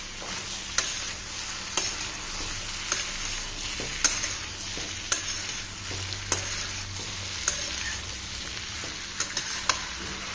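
Chopped vegetables frying in oil in a metal kadai with a steady sizzle, while a metal spatula stirs them, knocking and scraping against the pan about once a second.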